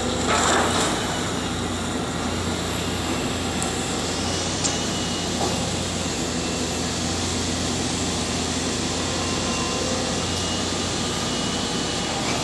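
Tracked demolition excavator's diesel engine running steadily under working load as the arm and grab are swung down towards the rubble. A brief louder burst of noise comes right at the start.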